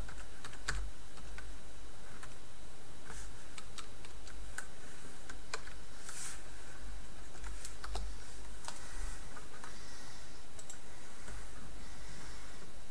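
Computer keyboard being typed on: scattered, irregular key clicks, with a low hum in the background.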